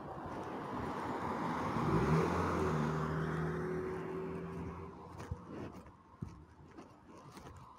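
A car passing by on the street: tyre and engine noise swells to a peak about two seconds in, with a steady engine hum, then fades away over the next few seconds.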